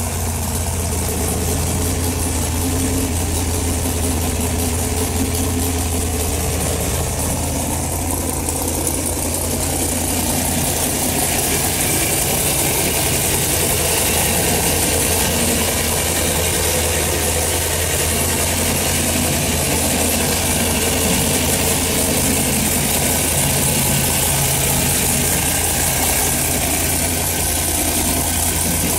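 Dart Big M 540 cubic-inch big-block Chevy V8, fuel-injected with a Holley HP EFI system and running on E85, idling steadily during its first start-up runs.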